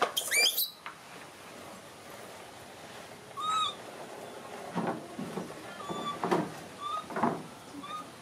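A baby macaque gives a sharp, rising squeal, then a few short, high coos. In between, a plastic toy truck rolls and scrapes along a wooden tabletop in short bursts.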